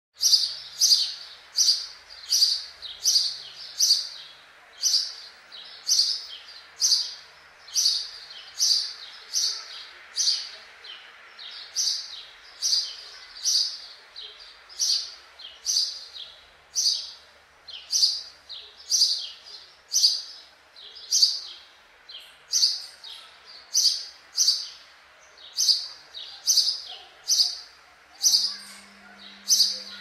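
House sparrow chirping: a single sharp chirp repeated steadily about twice a second without a break.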